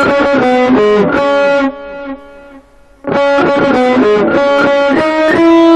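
Distorted electric guitar on a black Les Paul-style guitar playing a lead phrase of single picked notes in C♯ minor. It breaks off for about a second near the middle, then a second phrase follows and ends on a held note.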